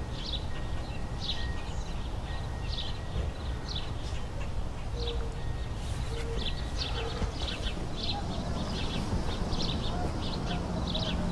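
Outdoor ambience of small birds chirping in short, repeated high notes, busier in the second half, over a steady low rumble.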